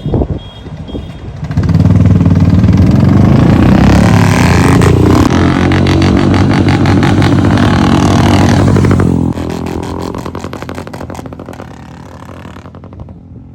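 Royal Enfield Bullet single-cylinder motorcycle engine accelerating hard close by, coming in loud about two seconds in, then dropping away after about nine seconds and fading out as the bike moves off.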